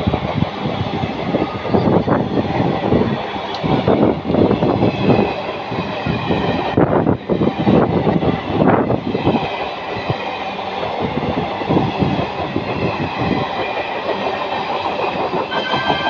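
Passenger coaches of an express train passing at speed, their wheels clattering over the rail joints in a fast, uneven clickety-clack over a steady rushing rumble.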